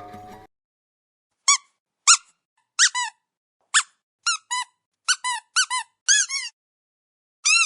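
Squeaky dog toy squeaked repeatedly, each squeak a short rise and fall in pitch. First single squeaks roughly a second apart, then quick pairs of squeaks.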